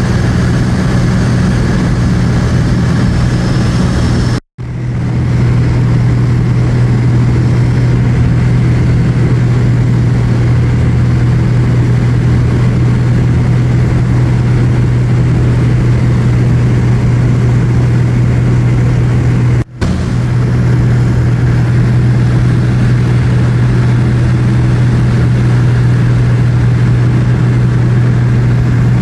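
Light aircraft's piston engine and propeller droning steadily inside the cabin, a loud, even drone with a deep hum. It drops out for an instant twice, about four seconds in and again near twenty seconds.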